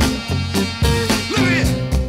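Background music: an upbeat band tune with a steady rhythm.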